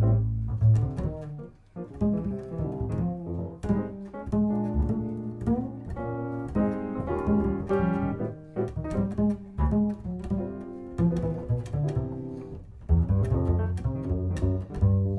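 Upright double bass played pizzicato in jazz: a continuous melodic line of plucked notes with deep, resonant low tones.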